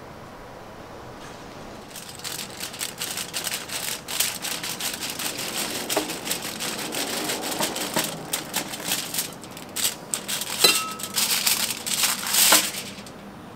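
Serrated bread knife sawing through the crisp crust of a sourdough loaf, a long run of quick crackling, crunching strokes. It starts about two seconds in and stops shortly before the end.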